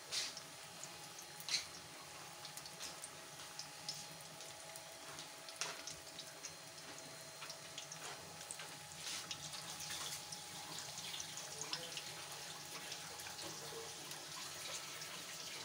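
Faint, steady sizzling of oil deep-frying, with scattered light crackles and pops.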